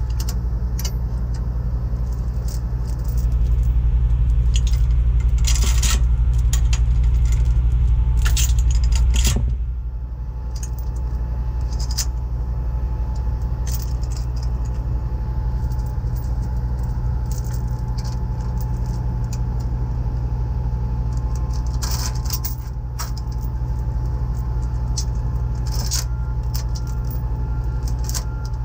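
Heavy steel tow chain clinking and rattling again and again as it is wrapped and hooked around a truck's undercarriage, over the steady low hum of an idling truck engine. The engine hum grows louder from about three seconds in, then settles back near the ten-second mark.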